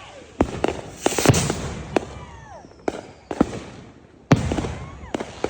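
Consumer fireworks going off: a series of sharp bangs with crackling between them, and a sudden burst of hissing about four seconds in.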